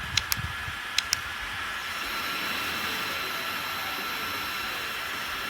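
Small bladeless neck fan running close to the microphone: a steady airy hiss with a faint whine, with two pairs of light clicks in the first second or so.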